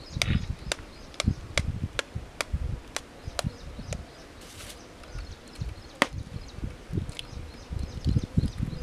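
An egg shell being tapped with a knife to crack it: a run of sharp, evenly spaced taps, about two or three a second, then one more tap about six seconds in, before the cracked egg is pulled open over a steel bowl.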